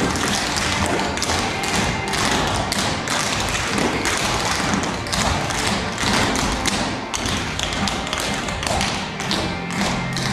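Percussive dance footwork: several dancers' feet striking the stage floor in a rapid rhythm of sharp taps and thuds, over music.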